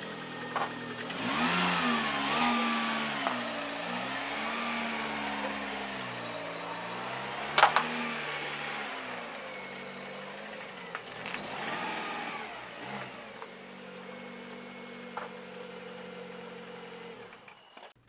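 Car engine running at low speed and revving up and down as the car manoeuvres out of a yard, with one sharp knock about halfway through; the sound cuts off just before the end.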